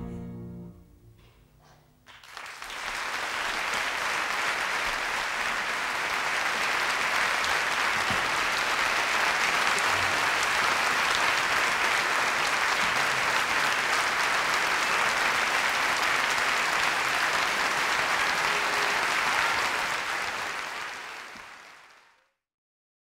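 The last note of the music dies away, then an audience applauds steadily for about twenty seconds before the clapping fades out.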